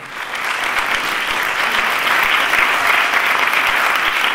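Audience applauding, the clapping swelling over the first second and then holding steady.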